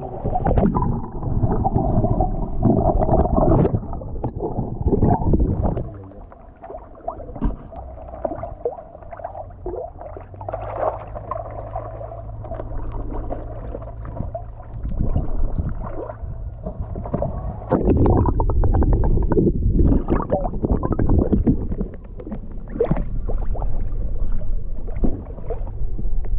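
Muffled gurgling and sloshing of pond water, heard through a camera held underwater and then at the surface. It is quieter for a few seconds early on and louder again in the last third.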